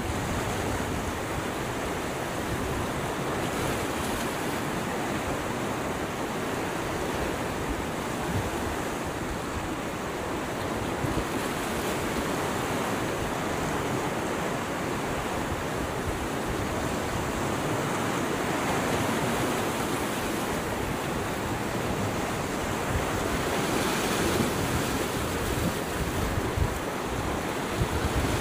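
Steady rush of a fast, swollen river running over rocks and through rapids, with some wind buffeting the microphone.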